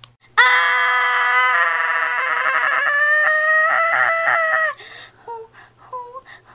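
A child's long, loud, held scream, voiced as the blast-off of a toy rocket right after a countdown. It starts about half a second in, rises slightly in pitch, wavers near its end and stops abruptly after about four seconds. Short snatches of voice follow.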